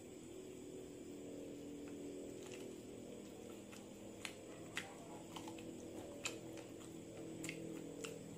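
Close-up eating sounds of a man sucking and chewing spicy chicken feet, with a few sharp mouth clicks and smacks from about four seconds in, over a steady low hum.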